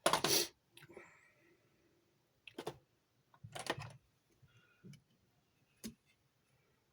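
A few short clicks and handling noises from hand work on the amplifier's wiring, the first the loudest and a sharp single click near the end.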